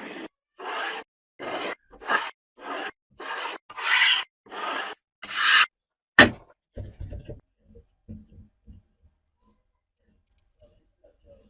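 Rhythmic rasping strokes of hand abrading on a workpiece, about nine strokes at a little over one a second. About six seconds in, a single sharp click, followed by a few soft low knocks.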